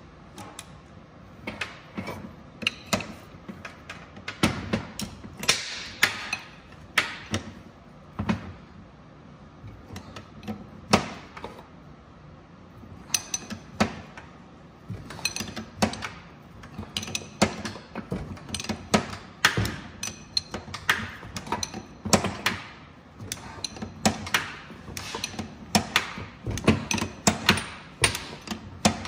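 Hand wrenches on an alternator pulley nut and shaft: irregular metallic clicks, knocks and scrapes of steel tools, several a second at times.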